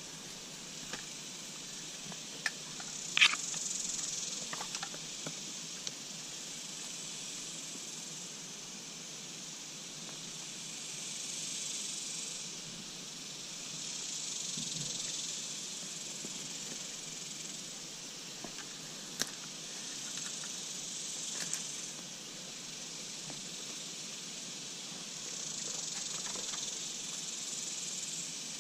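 Insects droning, a high steady buzz that swells and fades in slow waves, with a few sharp clicks, the loudest about three seconds in.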